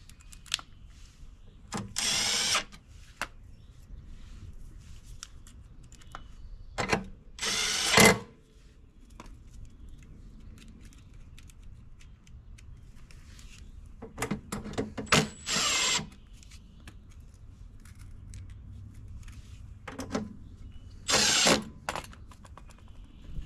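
Cordless screw gun driving Phillips screws into the mower's metal battery cover in short runs, about six of under a second each, the motor pitch rising in each run, with light clicks of handling between. Each screw is run just to snug.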